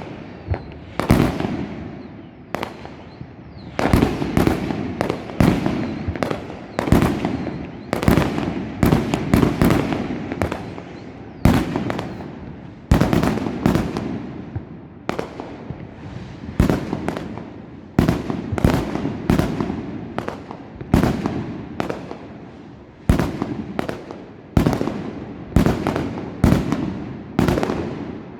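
New Year fireworks going off in a continuous barrage: sharp bangs one after another, often one or two a second, each fading out in a rumbling echo.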